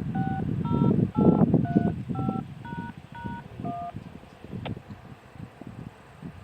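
A sequence of about eight short DTMF touch-tone beeps, roughly two a second, that ends about four seconds in: the dual-tone signalling code sent to activate outdoor warning sirens. A low rumble runs underneath, loudest in the first two seconds.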